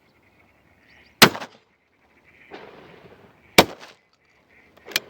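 12-bore shotgun shots: two loud reports about two and a half seconds apart, then a third, fainter shot near the end.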